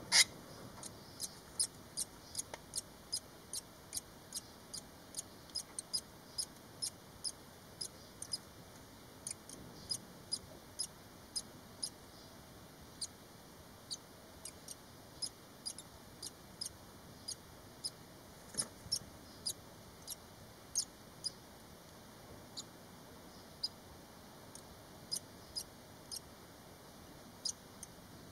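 Five-day-old barn swallow nestlings peeping: short, thin, high-pitched cheeps, one or two a second, with a few brief pauses. There is one sharper click right at the start.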